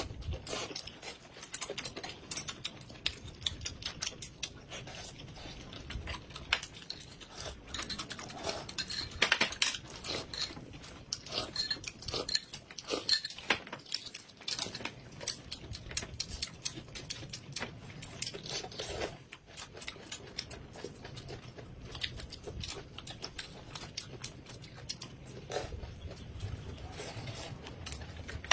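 Two people eating: chewing and slurping noodles, with chopsticks and tableware clicking and clinking in irregular bursts.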